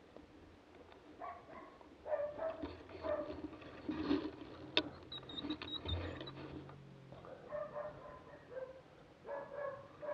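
Hunting dog barking repeatedly, in short calls at irregular intervals. A single sharp click about five seconds in.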